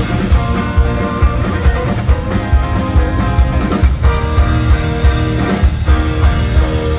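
A band playing live without vocals: strummed guitars over a steady drum beat.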